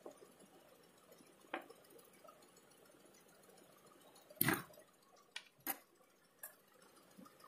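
Faint handling noises: a few light clicks and knocks as a small wooden block and its power-lead plug are handled and set down on a wooden tabletop. The loudest knock comes about four and a half seconds in, followed by two smaller clicks.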